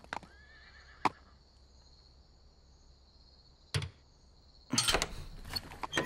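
Cartoon horse sounds, loudest from about five seconds in, after a mostly quiet stretch broken by a click and a thump.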